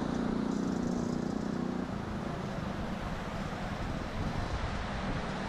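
Steady rushing noise of a swollen, fast-flowing river in flood, with a vehicle engine running underneath for the first couple of seconds.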